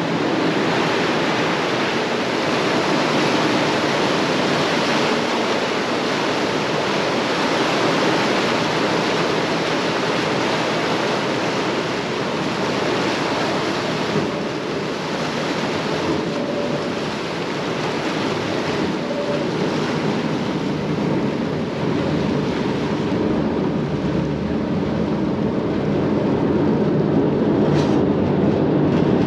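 Steady rushing of a passenger ferry's churning wake and the wind over the stern rail, with the boat's engines running beneath. In the last several seconds the hiss thins and a lower rumble grows louder.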